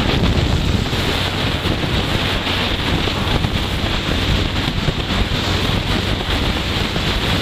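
Wind buffeting the microphone of a Honda CG 160 Fan motorcycle riding at highway speed, a steady rush with the bike's single-cylinder engine running underneath.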